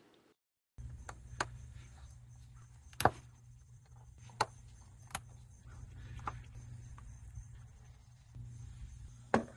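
Scattered sharp plastic clicks and taps as the wiring connector is unplugged from a mass airflow sensor and a small screwdriver works on the sensor's mounting screws, over a low steady hum. The loudest click comes about three seconds in.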